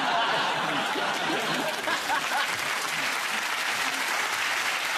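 Studio audience applauding steadily after a joke.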